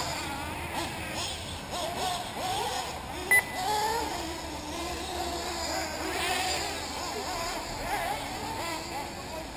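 Nitro engines of 1/8-scale RC off-road buggies whining, their pitch rising and falling continuously as they rev through the track, with a short beep about three seconds in.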